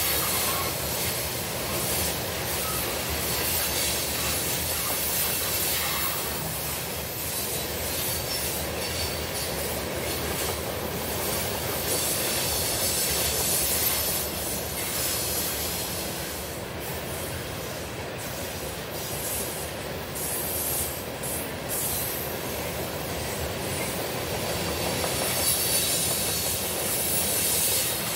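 Norfolk Southern covered hopper cars rolling past on the rails, a steady noise of steel wheels on track, with the last car going by near the end.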